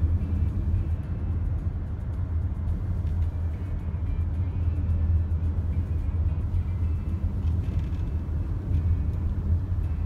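A car driving at highway speed, heard from inside: a steady low rumble of road and wind noise, with faint music underneath.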